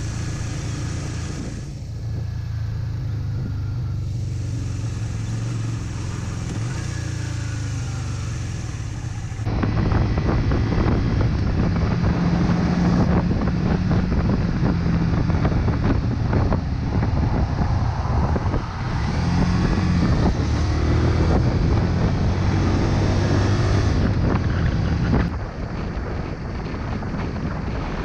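Motorcycle engine running under way, with wind rushing over the microphone. About a third of the way in it gets louder, and the engine pitch rises and falls as the bike speeds up and slows; it drops back in level near the end.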